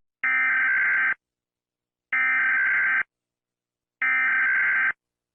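Emergency Alert System SAME header: three bursts of digital data tones, each about a second long and about two seconds apart. This is the encoded header that opens an emergency alert broadcast.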